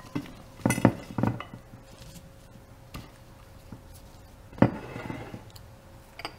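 Cucumber sticks dropped by hand into a glass mixing bowl of shredded carrot and papaya, making a handful of separate knocks and clinks against the glass, the loudest about four and a half seconds in.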